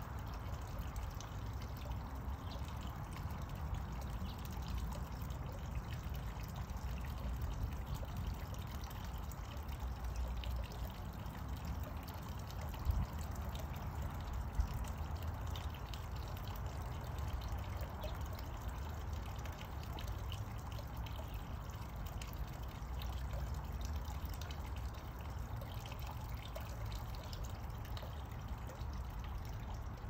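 Steady trickling, rushing noise like running water, over a low rumble, with two brief knocks about halfway through.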